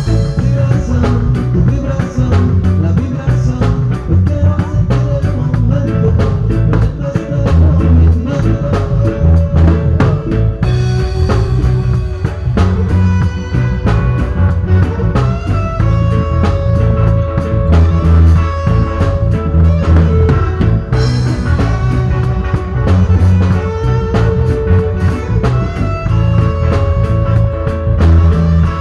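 Live band playing a reggae tune: steady drum kit beat, heavy bass line and guitar, with held melodic notes over the top.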